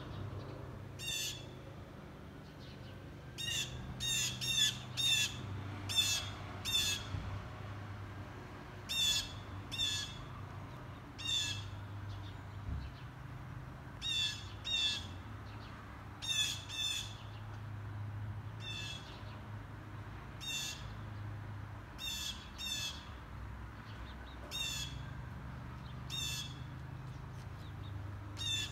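Harsh bird calls, short and high, coming singly or in quick runs of two to four every second or two, over a low steady hum.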